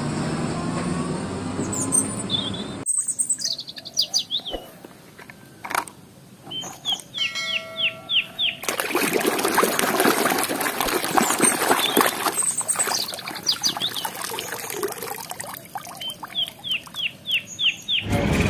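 A heavy truck's engine rumbles for the first three seconds or so and stops abruptly. Then comes a hand splashing and sloshing a toy in a plastic basin of foamy water, loudest in the second half. Birds chirp throughout in quick runs of falling chirps.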